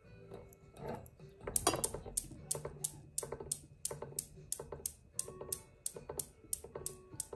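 Steel balls of a Newton's cradle clacking against each other in a steady run of sharp clicks, about three a second. The run starts about a second and a half in with its loudest strikes and carries on evenly.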